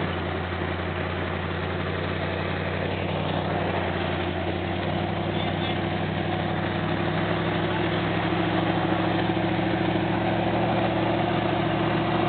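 Classic Ford Bronco's engine running at low revs while crawling over rocks, a steady low drone that grows slightly louder toward the end.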